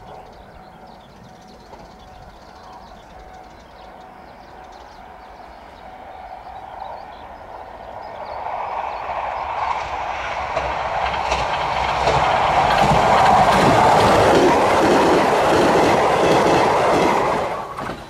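JR West 381 series limited express Yakumo electric train approaching and passing at about 110 km/h, wheels clattering over the rail joints. The sound swells from about six seconds in, is loudest over the last few seconds and cuts off suddenly near the end.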